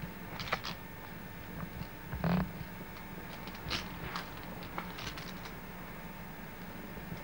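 Scattered faint clicks and rustles over a steady low hum, with one short louder noise about two and a half seconds in.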